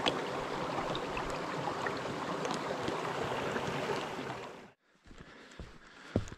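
Small stream running steadily over rocks, which cuts off abruptly about two-thirds of the way through; then quieter, with a few footsteps on the track near the end.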